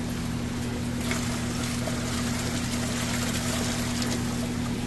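Water running steadily from a ribbed hose into a plastic bucket over a constant low electrical hum.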